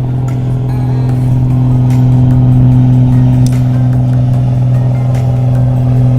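An engine running steadily with a low, even hum that rises slightly in loudness about two seconds in.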